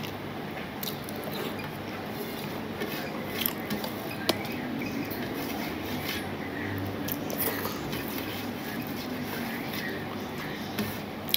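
Eating by hand from a stainless steel plate: fingers scrape and gather food on the metal with scattered light clicks, along with chewing. A steady background noise runs underneath.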